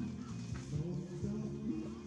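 Background music with a melody of low held notes that step from pitch to pitch.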